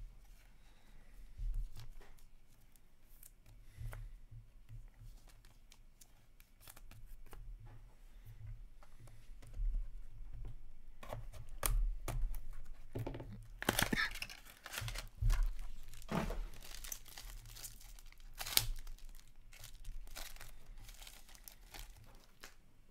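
A sealed box of trading cards being slit and torn open and its contents unwrapped: cardboard, paper and plastic tearing and crinkling, with scattered light clicks of handling. The loudest ripping comes in a run a little past the middle.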